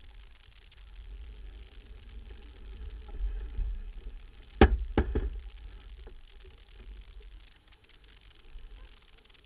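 Wind buffeting the microphone of a camera aboard a small sailboat under way, a low uneven rumble. About halfway through come two sharp knocks half a second apart.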